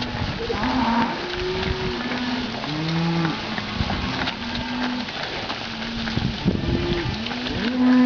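A herd of beef cattle on the move, mooing repeatedly. Several animals call one after another, some calls overlapping, with a louder call near the end.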